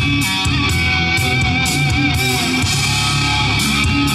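Rock music with electric guitar playing from the 1990 Corvette C4's Bose kick-panel speaker, just brought back to life by an amplifier repair; it is not turned up to full volume.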